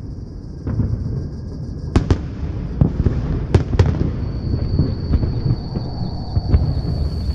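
Fireworks going off: a continuous low rumble of distant booms with sharp cracks, the loudest about two and three and a half seconds in. A thin, steady high whine joins about four seconds in.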